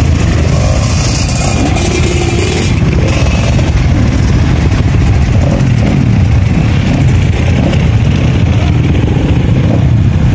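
Several trail motorcycles' engines running together close by, a loud, steady engine noise.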